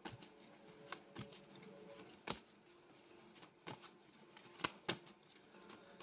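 Tarot cards being handled on a table: a scattering of light clicks and taps as cards are slid, turned over and laid down, the sharpest about two seconds in and near the five-second mark.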